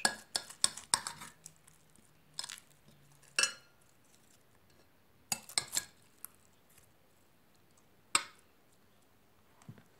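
A knife cutting through frozen slime in a glass bowl, its blade clinking and scraping on the glass. A quick run of clicks comes first, then single clinks every second or two.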